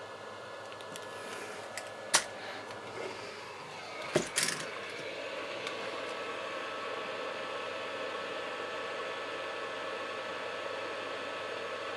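Hot-air rework station blowing a steady hiss of air, which grows a little louder from about five seconds in as the hot-air gun is brought over the circuit board to reflow solder. A sharp clack about two seconds in and a couple of knocks around four seconds are tools being handled.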